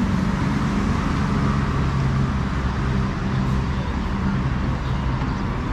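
Steady road traffic noise with a low engine hum, which fades after about three seconds.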